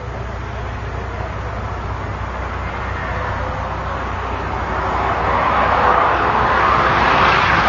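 Bugatti Veyron and LaFerrari engines at full throttle, heard from a distance, with a steady engine drone growing louder as the cars race closer. A rushing noise swells in about five seconds in.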